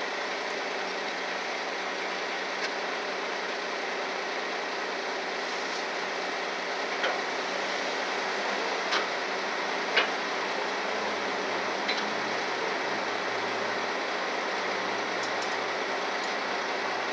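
Heavy-duty tow truck's engine idling steadily, with a few sharp clicks scattered through, the loudest about ten seconds in.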